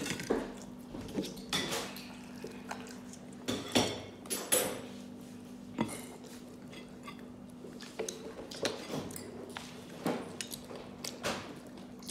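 Close-up eating sounds of a child eating fried chicken: scattered sharp clicks and clinks from handling the plate, cup and food, with mouth noises between them. A faint steady hum sits underneath.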